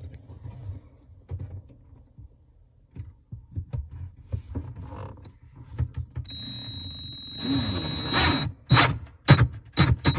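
Cordless drill driving a screw through a long extension bit: a few knocks from handling the tool, then the motor whines steadily from about six seconds in, and in the last couple of seconds it runs in short bursts, about three a second.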